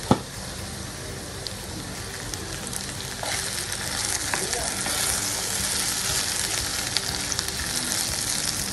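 Potato strips frying in hot mustard oil in a pan, sizzling steadily, growing louder from about three seconds in as a wooden spatula stirs and turns them. A sharp knock at the very start.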